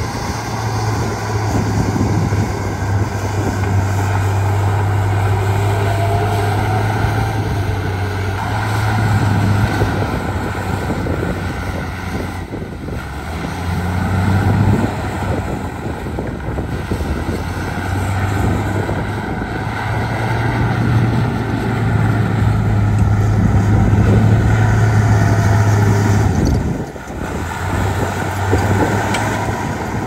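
Heavy earthmoving machinery's diesel engine working, a steady low drone that swells and eases several times under changing load and drops off briefly near the end.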